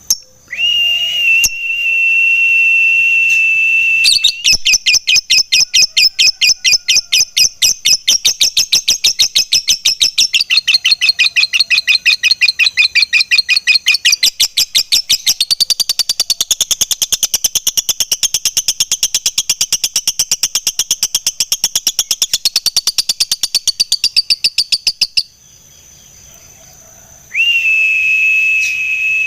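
Lovebird giving a long ngekek: a rapid chattering trill of evenly spaced, harsh high notes, held unbroken for about twenty seconds. A steady high whistling tone sounds for a few seconds before the trill and again near the end.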